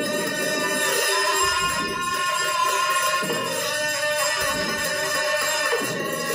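A pair of Tibetan hand cymbals played in ritual, struck together and left to ring with a dense, shimmering metallic ring that carries on between strokes.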